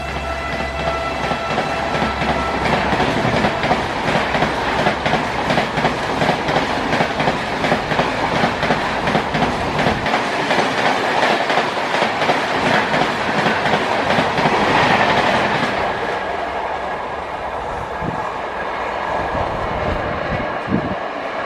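Indian Railways express train passing at speed, its coaches' wheels clattering rhythmically over the rail joints. The last of the train horn dies away in the first few seconds, and after about 16 s the clatter thins and drops as the train moves off.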